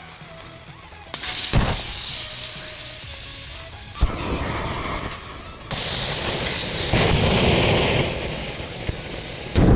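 Disposable butane lighters in a burning match-and-lighter tower venting gas as they overheat: a sudden loud hiss about a second in, a sharp pop soon after and another about four seconds in, then a second loud hiss of jetting gas in the middle, with more pops near the end.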